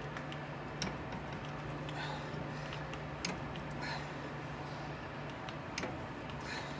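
Scattered sharp metallic clicks, about five spread irregularly over several seconds, from locking pliers clamped on a Maytag dryer's drive motor pulley as the pulley is worked loose off the motor shaft. A steady low hum sits underneath.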